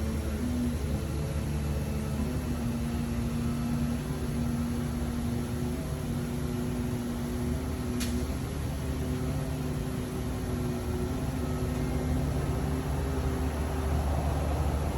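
HNK NT-16/20 CNC vertical boring mill running: a steady machine hum of several held tones over a low rumble, the tones stepping slightly in pitch now and then, with one short click about eight seconds in.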